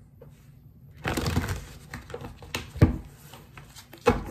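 Tarot cards being shuffled by hand: a rustling run of cards about a second in, followed by a few sharp taps and clicks of the deck, the loudest near the middle.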